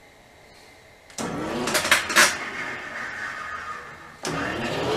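Milling machine's spindle motor switched on and spinning up about a second in, rising in pitch with a couple of sharp clanks, then winding down. It is started again near the end, its pitch climbing as it comes up to speed.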